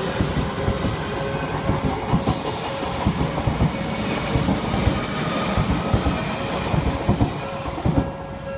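Train passing close by, its wheels clattering over the rail joints in a run of uneven knocks; the noise begins to drop away near the end as the train clears.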